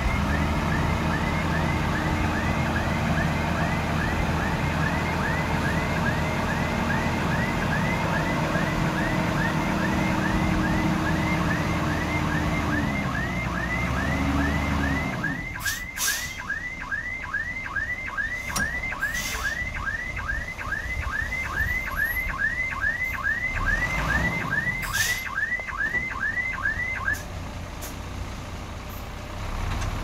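A machine's reversing alarm chirping steadily about twice a second over a heavy diesel engine running. The engine sound drops away about halfway through, a few knocks follow, and the chirping goes on for several seconds more before it stops near the end.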